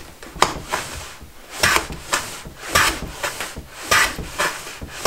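Lie-Nielsen No. 51 shooting board plane sliding along a shooting board and shaving the workpiece, with about six quick strokes. Its freshly sharpened blade, with a 30-degree secondary bevel, is taking fine shavings cleanly.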